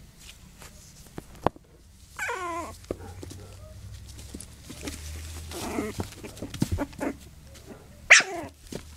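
Young puppies whining and yelping as they wrestle: a short falling cry about two seconds in and a louder falling yelp near the end, with small scratches and knocks between them.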